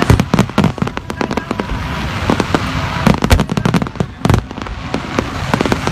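Fireworks display: shells bursting overhead in a dense, unbroken run of sharp, overlapping bangs.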